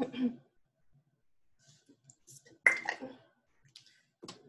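A woman's brief vocal sound a little past halfway, between a few faint clicks.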